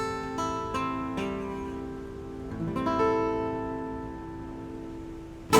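Instrumental ending of a folk song: acoustic guitar strumming with accordion holding chords, the chords slowly dying away. A short loud burst comes just before the end.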